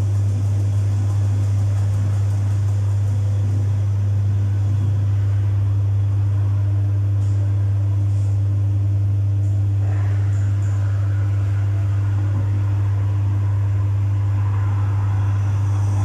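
Domus 8 kg washing machine running a full load at a steady speed: a strong, even low motor hum with no pauses, typical of the drum spinning.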